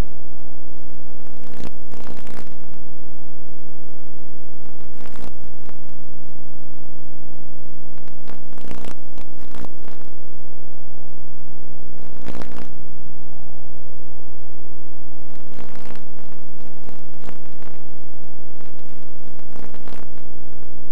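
Loud, steady electrical buzz made of many stacked tones, with short crackles breaking through every few seconds.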